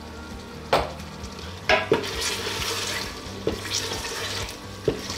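Wooden spoon stirring and scraping mutton masala in a pressure cooker pot, knocking against the pot several times, while the meat, masala and yogurt sizzle as they fry (bhuna) on medium flame.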